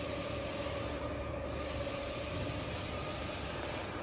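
Portable line boring machine running, its motor and gearbox turning the boring bar in an excavator bore with a steady whine over a constant hiss.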